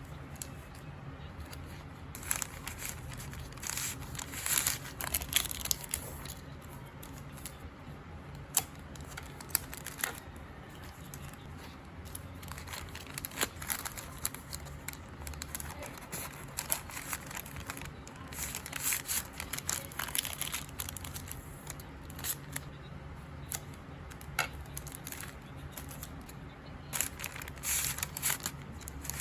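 Packaging being handled: plastic and paper crinkling and rustling in irregular bursts, with scattered sharp clicks and taps over a low steady hum.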